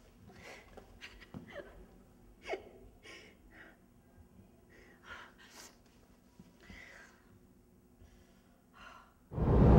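A young woman crying quietly, with short gasping breaths and sobs and a falling whimper about two and a half seconds in. Loud music comes in just before the end.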